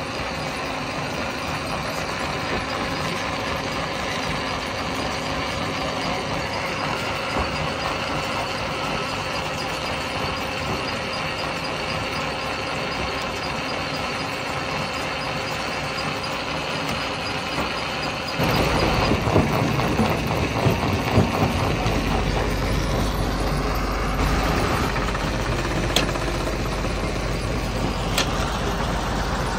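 Stone crusher machinery running steadily. About two thirds of the way through it grows louder, with a heavy low rumble, and a few sharp knocks come near the end.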